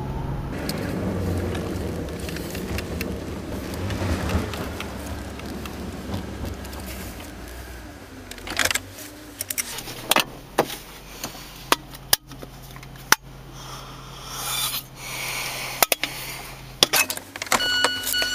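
Car cabin noise: a steady low rumble of the car rolling slowly, then a quieter steady engine idle after the car stops, with a string of sharp clicks and knocks from about halfway on.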